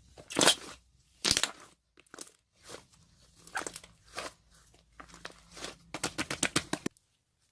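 Slime being squeezed and pressed by hand, making separate sticky pops and crackles, then a quick run of about ten pops a second that stops suddenly near the end.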